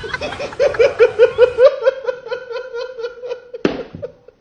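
High-pitched laughter, a quick run of 'ha-ha-ha' pulses about six a second that slows and fades toward the end. A single sharp knock about three and a half seconds in.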